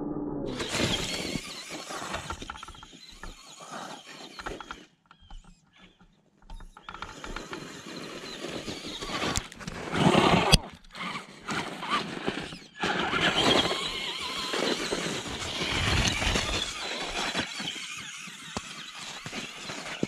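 Traxxas Stampede 2WD RC truck's electric motor and gear drivetrain whining in uneven revs as its tyres churn through snow. A near-quiet gap comes about five seconds in, and the loudest burst comes around ten seconds in.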